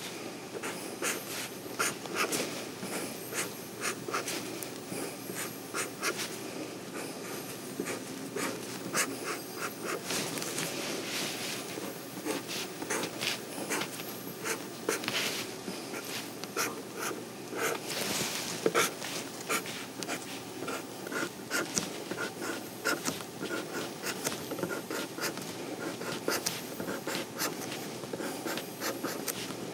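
Black felt-tip marker scratching on paper in many short, quick strokes as lines are inked, over a steady low background hum.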